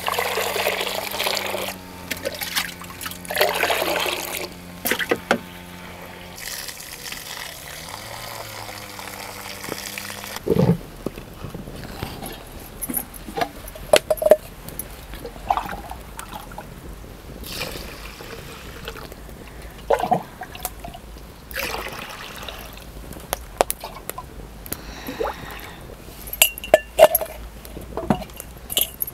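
Water poured from a clay pot over raw rice in a clay bowl, washing the rice, with low steady tones underneath. From about ten seconds in come scattered short knocks and clinks of clay pots and a brass vessel being handled at a clay stove.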